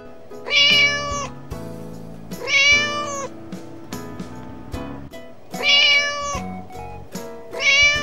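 Young kitten meowing four times, high thin meows each under a second long and about two and a half seconds apart, over background music.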